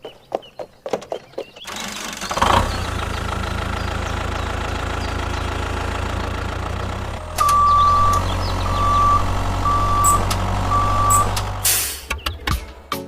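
A few light clicks and taps, then a truck engine runs steadily. About seven seconds in it gets louder and a reversing alarm beeps four times, about a second apart, before the engine stops near the end.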